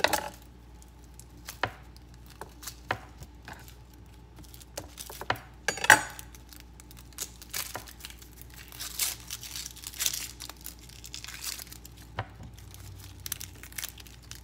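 A yellow onion being trimmed and peeled by hand: its dry, papery skin crackles and tears, with scattered sharp knocks of the knife and onion on a wooden cutting board, the loudest about six seconds in.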